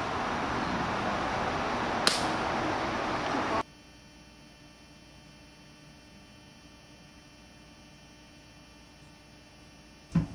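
Steady outdoor rushing noise with a single click about two seconds in, cutting off abruptly to a faint, steady electrical hum of several fixed tones.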